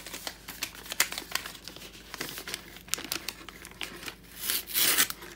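Sheets of wrapping paper crinkled and pulled open by hand, with irregular crackles throughout and a louder, longer rustle near the end.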